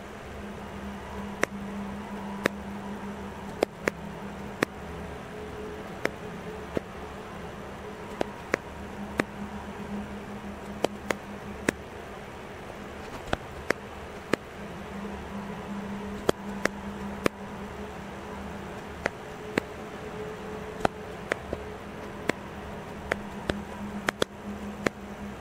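Camera shutter-speed and ISO dial wheels being turned step by step: sharp single clicks from the detents, irregular, roughly one a second and sometimes in quick pairs, over a steady low hum.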